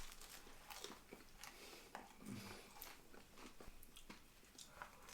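Faint crunching and chewing of a bite of crusty sourdough baguette, in scattered small crackles.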